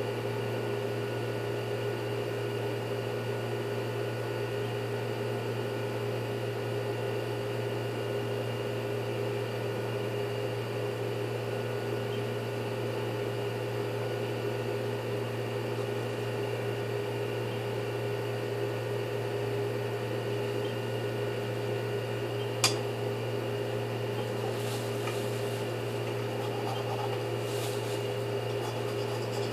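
Steady electric motor hum, unchanging in pitch and level, with one sharp click about three quarters of the way through and a few faint scrapes near the end.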